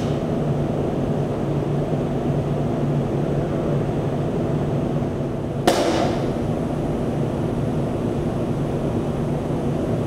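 Steady low hum of the test hall's air handling, broken by a single sharp snap with a short ring a little over halfway through.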